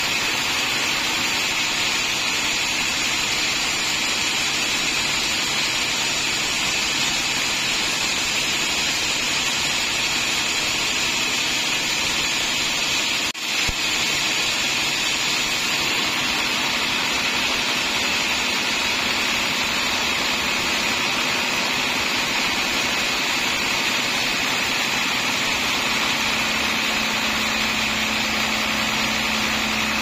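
Band sawmill running steadily, its blade ripping lengthwise through a trembesi (rain tree) log. A low steady hum comes in near the end.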